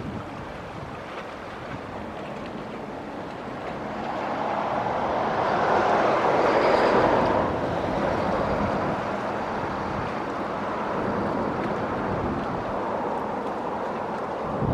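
Steady rushing of wind on the microphone and water, swelling for a few seconds in the middle before settling back.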